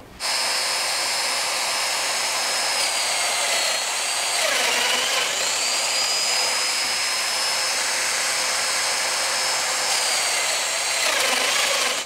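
Festool Domino DF 500 joiner running steadily as it plunge-cuts mortises clean through a plywood upright into a backer board, set to 28 mm depth. Its high whine sags briefly about four seconds in and again near the end.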